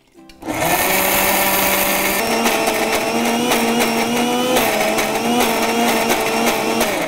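Prestige Delight Pro mixer grinder starting up about half a second in and running steadily, grinding roasted lentils and coconut with a little water into a coarse chutney. Its motor whine shifts in pitch a few times as the load in the jar changes.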